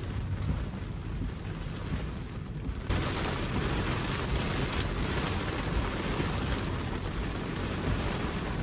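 Heavy rain falling on a car, heard from inside the cabin, with road noise underneath; the hiss jumps louder about three seconds in.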